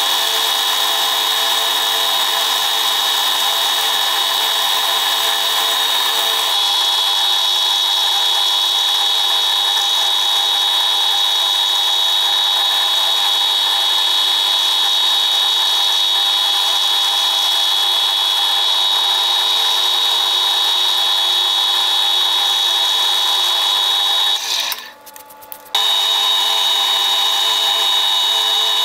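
Metalworking machine tool running steadily under power with a high whine. It drops out sharply for about a second near the end, then resumes.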